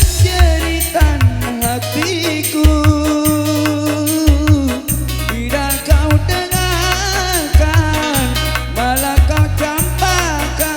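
Dangdut music from an orgen tunggal keyboard band in an instrumental passage: a gliding, bending lead melody over a steady bass and drum beat.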